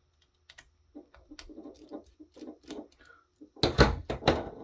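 Handling noise from a disassembled security camera's plastic housing and circuit boards: a run of small clicks and light knocks, then a louder cluster of knocks and clatter about three and a half seconds in.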